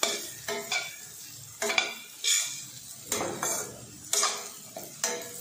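Metal spatula scraping and knocking irregularly against a stainless steel pan while stirring onions and garlic frying in oil, with a light sizzle underneath.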